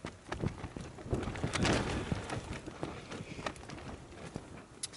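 Quiet handling noise while gravy is poured from a plastic cup onto a plate: scattered light taps and clicks, with a brief rustle or splash between one and two seconds in.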